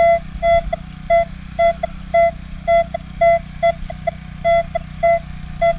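Minelab Equinox 800 metal detector giving short repeated target beeps at one pitch, about two to three a second, as the coil is swept back and forth over a buried target. A steady low hum runs underneath.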